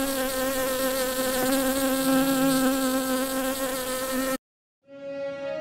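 Buzzing bee sound effect: one steady, slightly wavering drone that cuts off suddenly about four seconds in. After a brief silence, soft music begins near the end.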